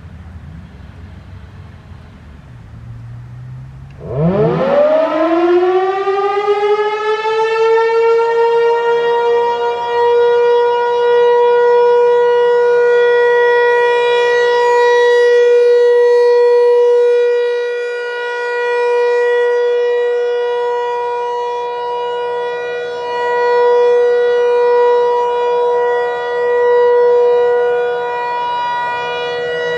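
Federal Signal 508 outdoor warning siren winding up about four seconds in, its pitch rising quickly and levelling off into a steady single tone that it holds, swelling and fading slightly in loudness. A low rumble comes before the wind-up.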